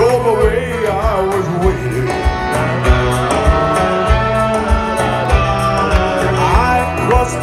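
Live band music played loud through a concert PA: a singing voice over electric guitars and keyboards, with a steady drum beat.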